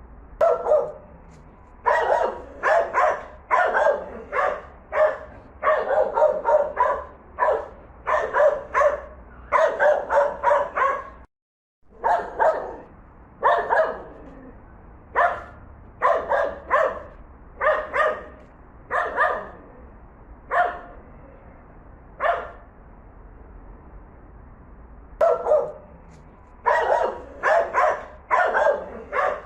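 Dogs barking in a series of recordings. First a German Spitz (Pomeranian) barks in quick clusters. After a short gap about 11 s in comes a Doberman's slower, more spaced barks. Near the end a Poodle barks in rapid runs.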